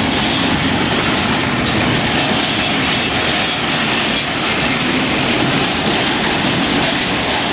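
Freight train of boxcars rolling past close by, steel wagon wheels running on the rails with a loud, steady rolling noise.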